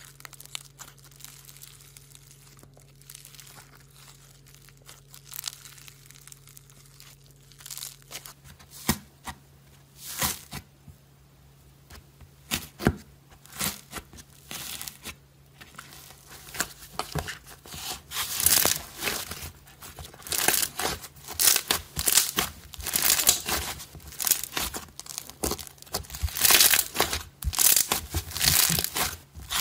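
Slime being squeezed and pulled by hand. For the first part it is foam-bead slime with faint crackling. About a third of the way in, thick fluffy slime takes over, being poked, stretched and torn apart, with dense crackling and popping that grows louder in the second half.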